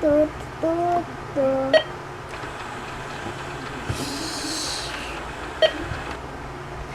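Toy cash register beeping three short times in the first two seconds as items are scanned, with sharp plastic clicks, over the steady hum of its battery-driven conveyor belt motor. A brief hiss comes about four seconds in.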